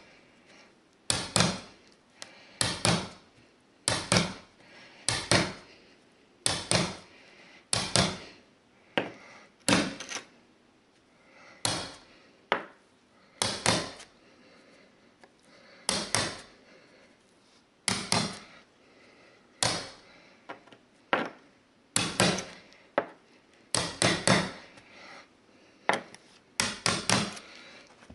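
Hammer striking a steel carpet stair tool to tuck the berber carpet edge down at the tile edge: sharp knocks, one every second or two, often in quick pairs, each with a short ring.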